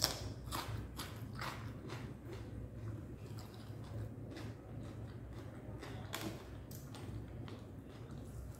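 Crisp crunch of a bite into a raw cucumber slice, followed by close-up chewing with a string of smaller crunches, roughly one every half second to second.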